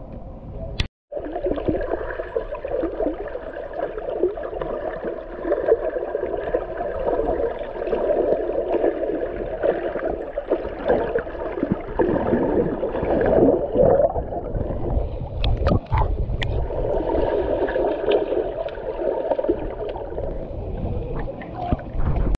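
Muffled underwater sound of a swimming pool picked up by a submerged camera: water gurgling and sloshing as swimmers move, with a few sharp clicks. The sound cuts out briefly about a second in, then runs on at a steady loudness.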